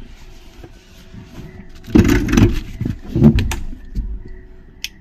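Rustling and knocking from the camera being handled and moved close to the microphone, loudest for about a second and a half a couple of seconds in, with a faint hiss before it and a single sharp click near the end.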